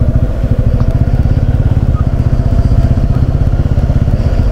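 Motorcycle engine running steadily on the move, its exhaust pulses forming a rapid, even beat.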